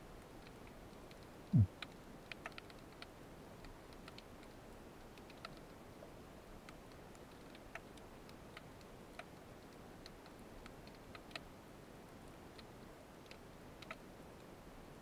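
Faint underwater sound picked up by a submerged camera: sparse, irregular clicks and ticks over a low hiss, with one short low tone sliding downward about a second and a half in.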